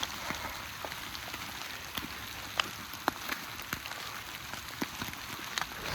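Steady rain: a constant hiss with irregular sharp ticks of drops landing close by.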